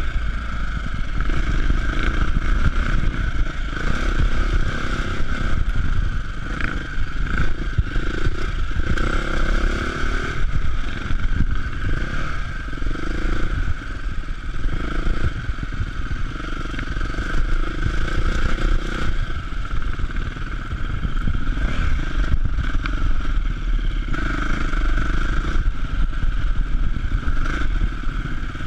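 Enduro motorcycle under way on a rough trail, its engine running and changing with the throttle, with a heavy low rumble as heard from a camera mounted on the bike.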